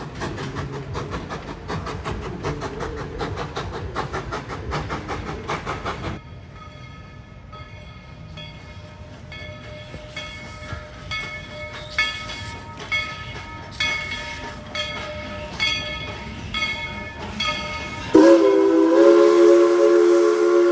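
A steam train rattling along the track for about six seconds, cutting off abruptly. Then the locomotive's bell rings steadily about once a second, and near the end a loud chime steam whistle starts blowing.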